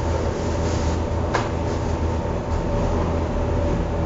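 A steady low mechanical hum, with a single sharp click about a second and a half in.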